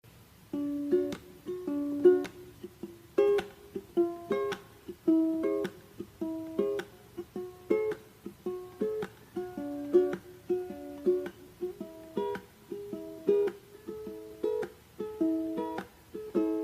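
Instrumental music: a ukulele picking a gentle melody in single plucked notes, about two a second.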